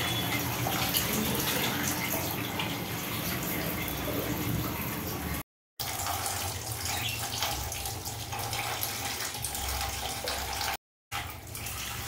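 Water running steadily from a tap, an even rushing hiss, cut to silence twice for a fraction of a second.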